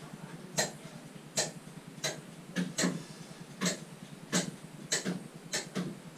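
A run of sharp clicks or knocks, roughly one every half to three-quarters of a second and slightly uneven, over a faint steady background.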